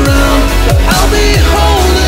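Electronic dance music with a steady kick-drum beat about twice a second under held synth notes.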